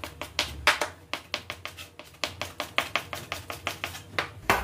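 Kitchen knife chopping bell pepper on a cutting board: a quick, steady run of sharp taps, about five a second.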